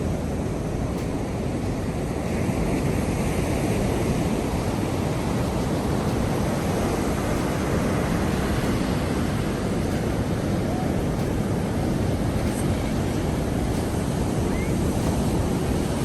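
Rough sea surf, a steady, continuous rush of breaking waves without separate crashes.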